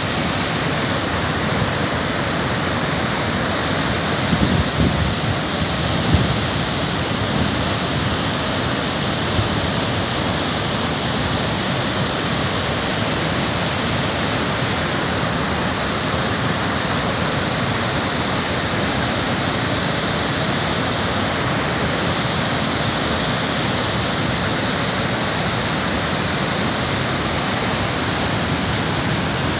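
Waterfall in full flood: a broad sheet of water pouring over rock ledges and rushing downstream, a steady, loud rush of water. A couple of low thumps come about four to six seconds in.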